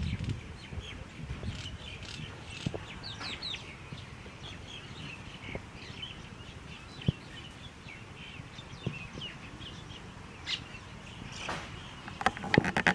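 Small birds chirping and calling, with many short high chirps and quick sweeping notes throughout. A few sharp clicks come in between, and louder rustling near the end.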